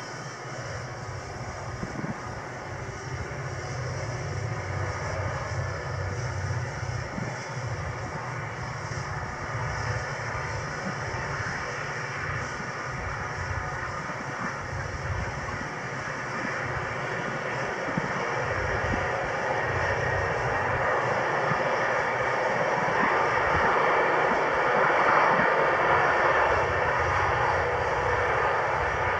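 Five diesel-electric locomotives hauling a loaded grain train, their engines running in a steady drone that grows louder as the train approaches and passes closest near the end.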